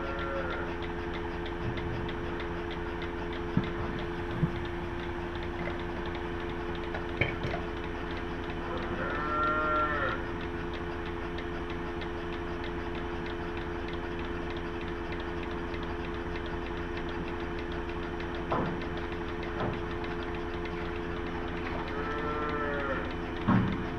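Cattle lowing three times, each call rising and then falling in pitch, over a steady mechanical hum, with a few short knocks in between.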